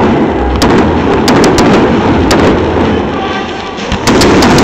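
Fireworks display: a dense, rapid run of bangs and crackles over a continuous rumble. The noise eases a little, then a fresh loud barrage starts about four seconds in.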